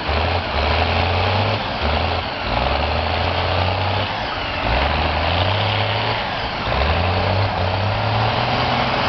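Vintage tractor engine working hard as it drags a weighted pulling sledge, its low note rising and falling in steps as the load changes.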